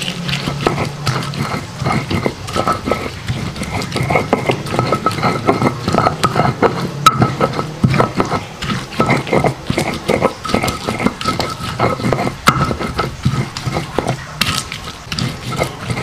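Hand-held stone grinding chillies, shallots and garlic into a wet paste on a flat stone grinding slab: quick, irregular strokes of stone scraping and crushing against stone through the wet paste.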